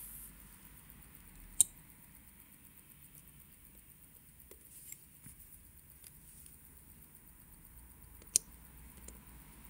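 Small sharp clicks of steel tweezers and tiny watch parts being handled on a watch movement: two louder clicks, one about a second and a half in and one near the end, with a few fainter ticks between, over a faint hiss.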